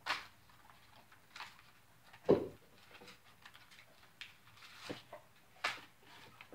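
MRE packaging, plastic and paper pouches, crinkling and rustling in short bursts as the packets are handled, with one loud knock a little over two seconds in.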